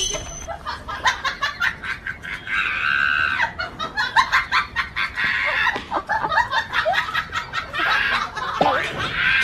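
Chickens clucking and squawking in a string of short, irregular calls, with one longer, louder squawk about three seconds in.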